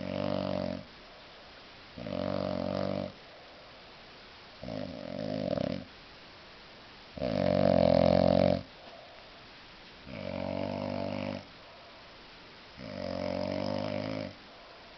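A heavily drunk man snoring in deep sleep: six loud, buzzing snores, one roughly every two and a half seconds, with quiet breaths between them; the snore about halfway through is the loudest.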